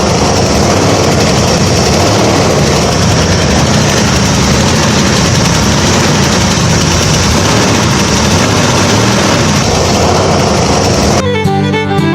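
A small engine running steadily, with a steady high whine above it. It cuts off about eleven seconds in, when fiddle-led music starts.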